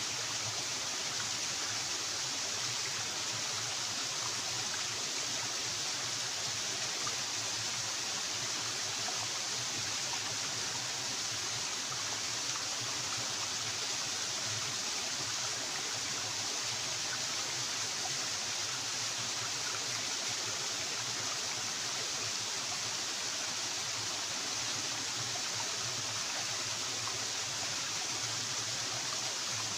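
Steady rush of flowing river water, an even hiss.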